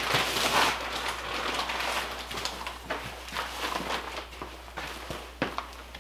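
Bags rustling as they are handled and carried: a loud rustle at the start, then scattered rustles and sharp knocks, over a low steady hum.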